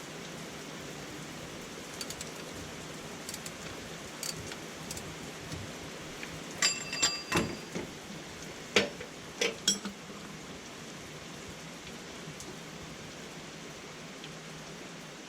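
Used engine oil draining in a steady stream into a drain pan, a continuous splashing hiss. A cluster of sharp metal clinks, some ringing, comes about seven to ten seconds in.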